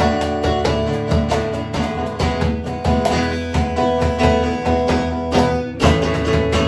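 Live acoustic guitar strummed in a steady rhythm with electronic keyboard accompaniment, playing a song's closing bars; the music stops sharply right at the end.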